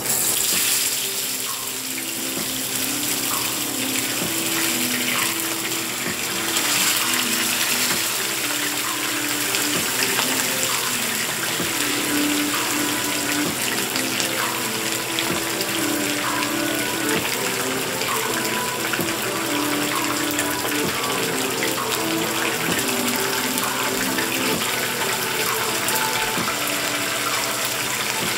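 Whole seasoned fish frying in hot oil in a frying pan: a loud, steady sizzle with crackling. It starts sharply as the fish go into the oil.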